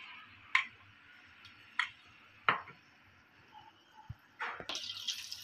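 Oil in a kadai deep-frying batter-coated dumplings: a faint sizzle with a few sharp pops and crackles. The sizzle grows louder near the end.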